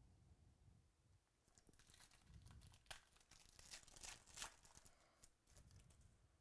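A 2017 Chronicles Baseball trading card pack being torn open by hand: a faint crackling tear with crinkling of the foil wrapper, thickest about three to four and a half seconds in.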